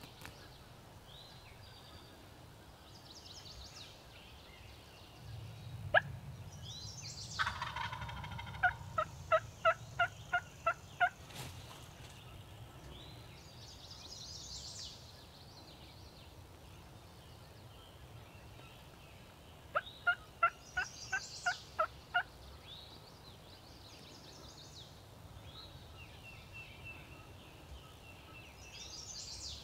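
Turkey calling: two series of evenly spaced yelps, about two and a half a second, six or seven notes each, the second series some ten seconds after the first. A sharp crack comes just before the first series.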